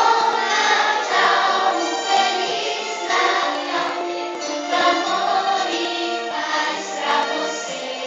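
A group of young children singing a Christmas song together over recorded backing music.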